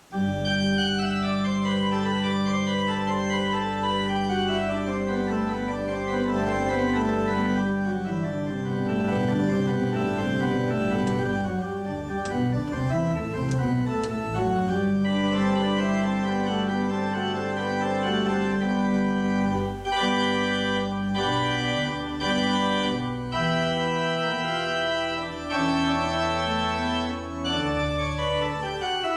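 Organ music: slow, sustained chords with moving notes, cutting in abruptly at the start.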